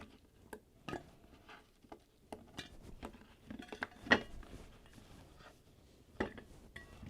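Sliced cucumber pieces being put into a bowl: scattered light knocks and taps against the bowl, the loudest about four seconds in and again about six seconds in.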